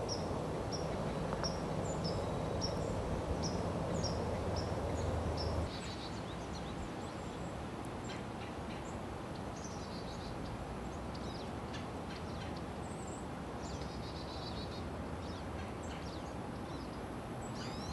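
Outdoor ambience of songbirds over a steady background hiss: a bird repeats a short high chirp about twice a second for the first five or six seconds, then the sound cuts to a quieter scene with scattered bird calls.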